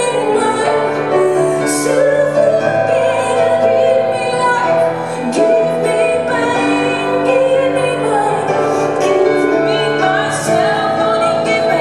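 Live concert performance: a woman singing long, held notes over piano accompaniment.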